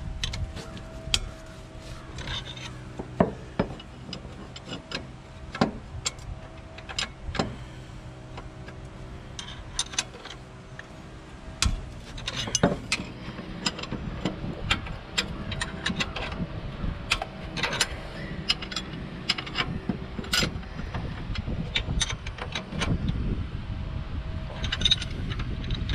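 Two wrenches working the 3/4-inch engine mounting bolts of a Walker mower: irregular metallic clicks and clinks of the wrenches on bolt and nut, with a few sharper knocks. A steady hum sits underneath and fades out about halfway through.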